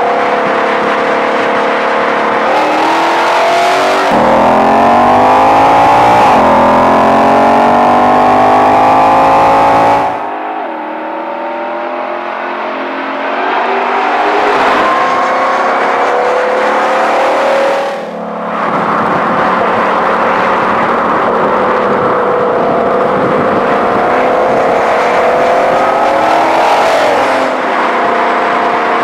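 Ford Mustang Shelby GT500's supercharged 5.2-litre V8 accelerating hard, its pitch climbing and dropping back several times through gear changes. The sound changes abruptly twice, about a third and two thirds of the way in.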